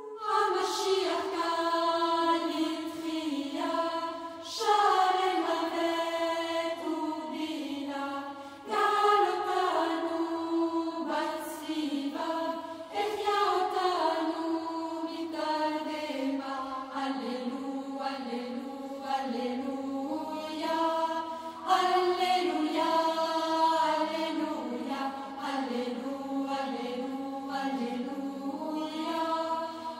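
Background music: a sung chant, a melodic line of long held notes that slide between pitches, in several phrases.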